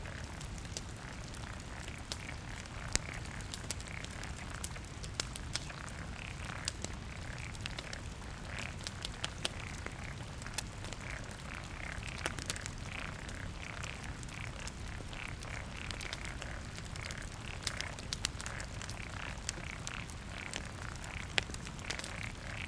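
Wood fire burning with frequent sharp crackles and pops over a low steady rumble. Behind it runs a long series of short, repeated higher-pitched calls.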